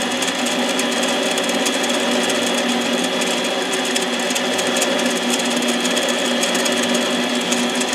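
Harbor Freight 7x10 mini lathe running steadily, its motor and gear train giving a constant whine with several steady tones, as it turns a chainsaw piston. It is taking a light cut off the piston crown.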